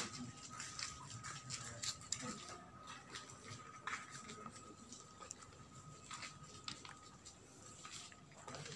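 Faint footsteps and scattered light clicks, over a thin steady high tone that fades out near the end.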